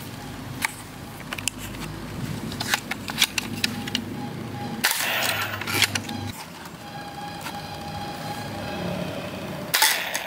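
Toy foam-dart blaster (Nerf Alpha Strike) being primed and fired several times: a series of sharp plastic clicks and pops, some coming in quick clusters.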